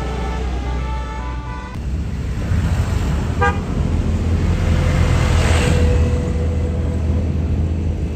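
Tour bus telolet basuri horn playing a quick tune of stepped tones, cut off about two seconds in. Then a bus engine runs loudly, building to a peak around five to six seconds in, with a brief horn toot about three and a half seconds in.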